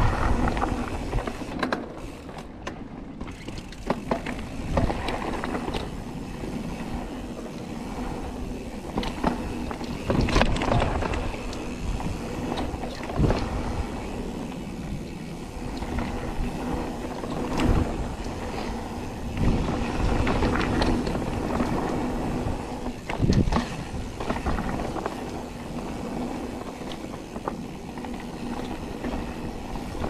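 Mountain bike riding down a rough dirt trail: steady tyre and drivetrain noise with the bike rattling, and several sharp knocks as it hits rocks and roots.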